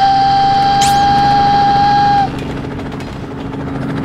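Cartoon sound effects: a single loud held tone for about two seconds that then cuts off, with a quick swish about a second in, over a steady low hum.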